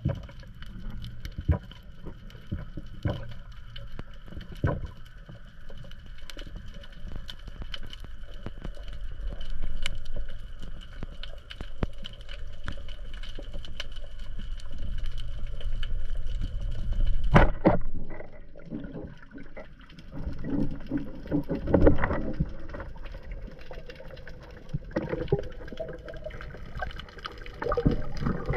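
Underwater sound on a spearfishing dive: a steady wash of water with many small clicks and crackles. About 17 seconds in there is a sharp knock, after which louder bubbling and gurgling water comes in bursts.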